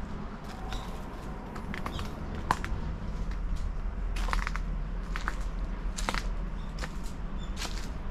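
Footsteps of a person walking, each step a short crunch, roughly one a second and unevenly spaced, over a steady low rumble.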